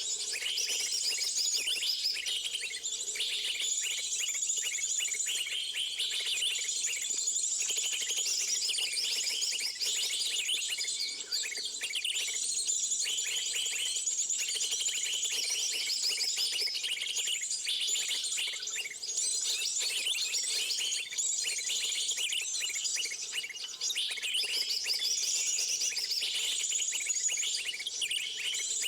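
Dense, continuous chorus of small birds giving rapid high chirps and trills.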